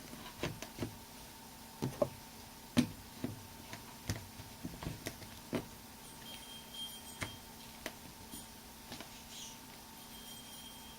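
Irregular clicks and knocks of batteries being swapped out by hand for fresh cells, several in quick succession over the first half and sparser later.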